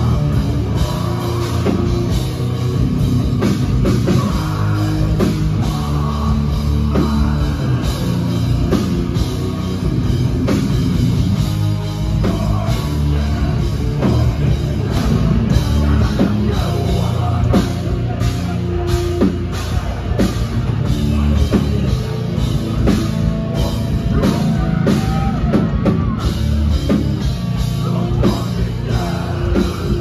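A heavy metal band playing live, recorded from the crowd: heavily distorted guitars and bass with fast, pounding drums and a vocalist on the mic, loud and dense throughout.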